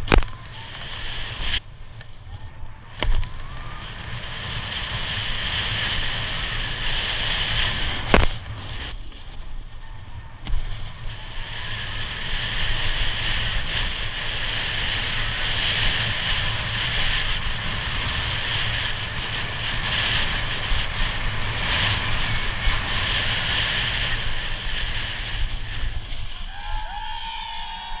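Snowboard sliding and carving down a groomed slope, its edges scraping over the snow in a steady hiss that swells and fades with each turn, with a few sharp knocks in the first ten seconds. Wind rumbles on the microphone underneath.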